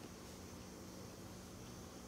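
Quiet room tone: a faint, steady low hum with an even hiss and no distinct events.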